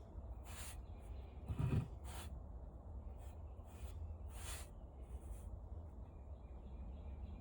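Scattered handling noises of copper wire being pulled out of a small fan motor: several brief rustles and scrapes, with a low thump about a second and a half in, over a steady low hum.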